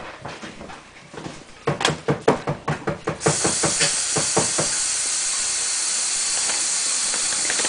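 A quick run of knocks and clatters, then a steady hiss of running water that starts suddenly about three seconds in and keeps going, as from a kitchen tap turned on full.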